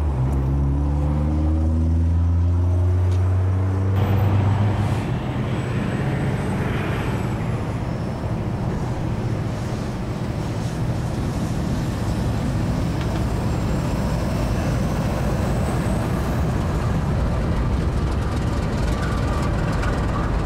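Heavy CSX freight train with GE widecab diesel locomotives rumbling toward and under a road bridge, followed by loaded coal hopper cars rolling past. A loud engine drone whose tones slowly rise in pitch fills the first four seconds or so, before the steady train rumble takes over.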